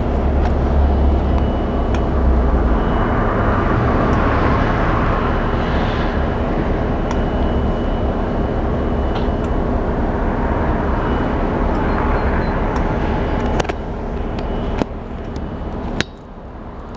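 Diesel locomotive engine running steadily as the locomotive passes close below. The sound drops suddenly twice near the end.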